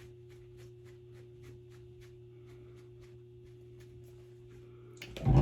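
Faint rapid ticking, about four ticks a second, over a low steady hum, then one loud short thump near the end.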